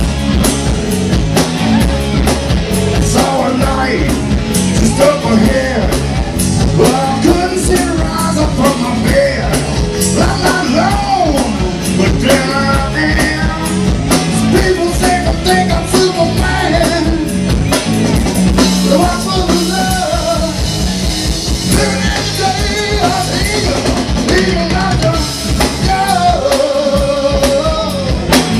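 Rock band playing live: drum kit, electric bass and electric guitar, with a man singing lead vocals.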